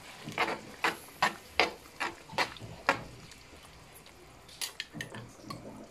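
A cooking utensil stirring pork pieces in a granite-coated frying pan: a run of about seven quick scrapes and knocks, roughly two to three a second, then a few more near the end.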